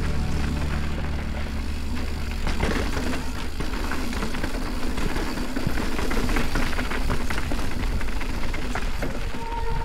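Mountain bike ridden fast down a rough trail: tyres rolling over dirt and rock with a constant rattle of the bike and chain over many small knocks.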